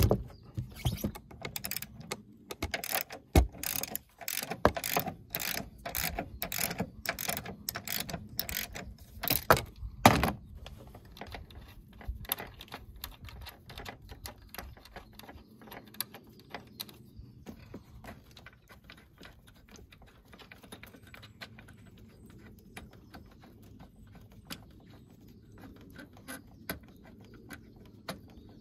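Ratchet wrench clicking as it works an 18 mm engine-mount bolt: a run of sharp clicks at about two or three a second for roughly ten seconds, then fainter, scattered clicks.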